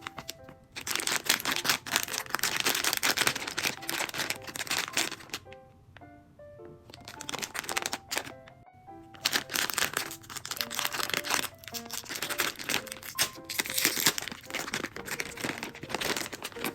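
Plastic blind-bag packaging crinkling and tearing as it is opened by hand, in two long stretches with a pause of about three seconds between them, over light background music.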